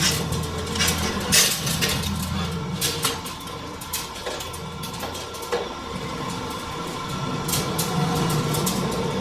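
Metal lathe running with a steady low hum, with irregular metallic clanks and scrapes from 12 mm steel wire being coiled into a heavy spring.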